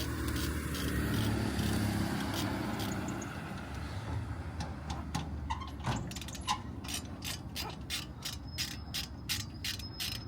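Ratchet wrench clicking as a caliper bolt is turned: a steady run of sharp clicks, about three a second, starting about halfway through, after some low rumbling handling noise.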